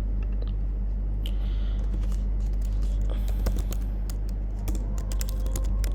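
Computer keyboard keys clicking in irregular taps, sparse at first and coming more often in the second half, over a steady low electrical hum.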